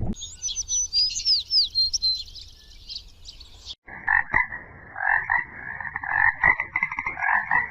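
Animal calls from two clips. First come quick, high, curving chirps. After a sudden cut a little under four seconds in, a steady run of lower calls repeats rapidly.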